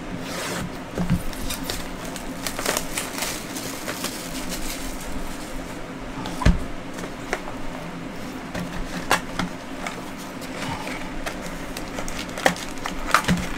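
Plastic shrink wrap crackling and cardboard rustling as a sealed trading-card box is unwrapped and opened by hand, with scattered clicks and a sharp knock about halfway through.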